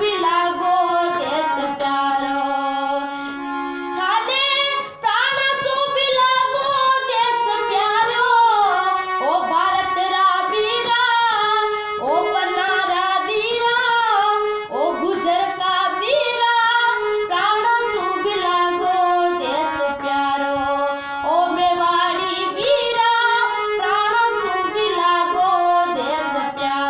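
A girl singing solo in Rajasthani, a mournful tribute song in a strong voice with long held, ornamented notes.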